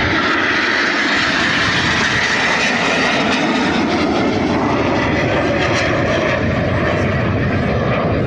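Loud, steady engine noise of aircraft flying low overhead.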